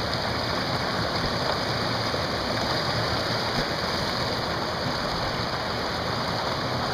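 Steady, unbroken rush of river whitewater pouring over a whitewater-park wave, the river running at about 630 cfs.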